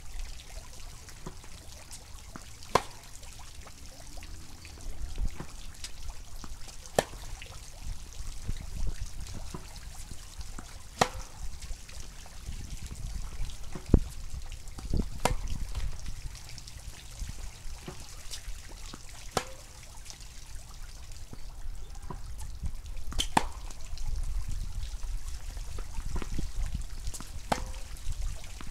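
Tennis ball struck by racquets in a groundstroke rally, sharp pops every two to four seconds, some loud and close, others fainter from across the court. A steady low rumble runs underneath.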